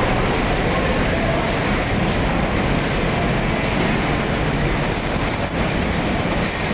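Citrus washing and packing line running, a steady dense clatter of conveyor rollers and machinery carrying oranges.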